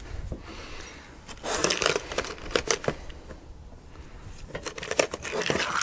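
Metal parts of a windshield-setting tool clinking and rattling as they are handled, in two bursts: about a second and a half in, and again near the end.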